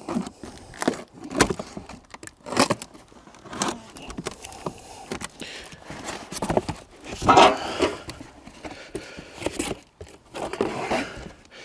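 Hands unpacking a wood chipper's mulching kit: irregular scrapes, rustles of packaging and knocks of parts being moved, louder about seven seconds in.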